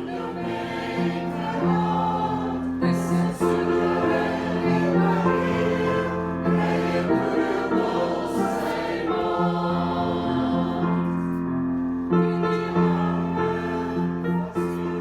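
Choir singing a gospel song in long held chords.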